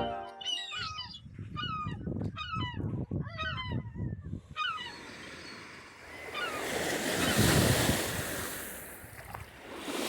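Waterbirds calling, a run of repeated honking cries over the first five seconds, then waves washing onto the lake shore, swelling and easing.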